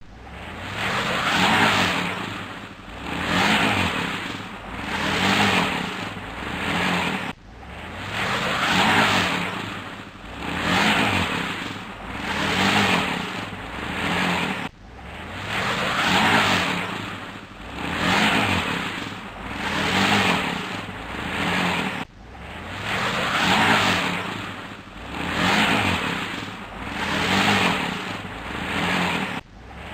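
Truck stuck in mud, its engine revved over and over with the wheels spinning; each rev swells and drops back, about one every two seconds. The same short stretch repeats about every seven seconds.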